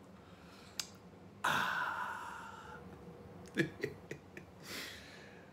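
A man's long, sigh-like exhale that starts suddenly about a second and a half in and fades over a second or so, followed by a few short clicks and a softer exhale near the end.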